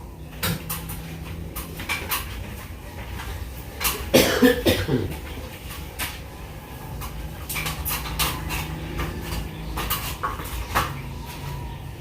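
Scattered clicks and knocks of objects being handled, over a steady low hum. About four seconds in comes a louder, short sound that wavers in pitch.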